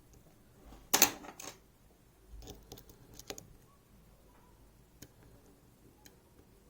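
Sharp metallic clicks and rattles of lock-picking tools working in a MIWA U9 lock. The loudest cluster comes about a second in, a second group follows about a second later, and a few faint single ticks come near the end.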